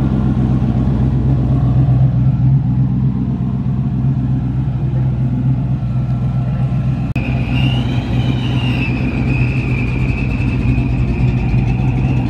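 Steady low rumble of car engines running at a car meet. About seven seconds in the sound changes abruptly, and a high, wavering whine joins the rumble.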